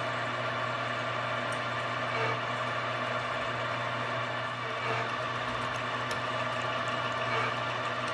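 Vertical milling machine running steadily with an even motor hum while a twist drill bores a pilot hole into a solid aluminum block, with a few faint ticks.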